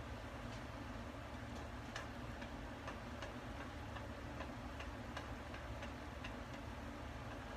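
A cooking utensil clicking and tapping against a saucepan as food is stirred: light, irregular clicks about two a second, over a steady low hum.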